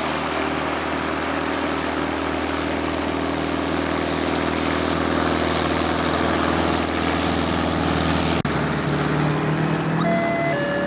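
Single-engine light aircraft's piston engine and propeller running steadily as the plane taxis and begins its take-off roll, with a momentary dropout about eight seconds in. Near the end a simple electronic melody of alternating notes starts.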